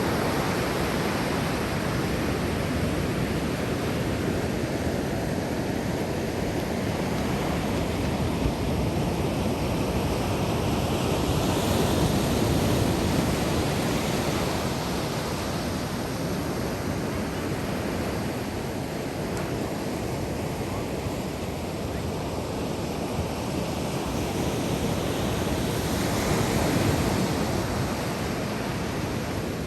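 Ocean surf washing onto a sandy beach: a continuous rushing hiss of breaking waves that swells louder and eases back as each set comes in, peaking a few seconds in, around the middle and near the end.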